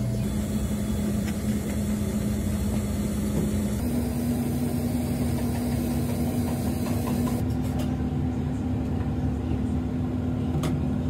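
Steady low machine hum with one steady tone, shifting slightly in pitch twice.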